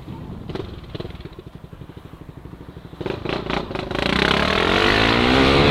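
Honda CB Twister motorcycle's single-cylinder engine running at low revs with a fast, steady putter. About three seconds in there are a few clicks, then the engine revs up and gets louder, its pitch rising as the bike accelerates.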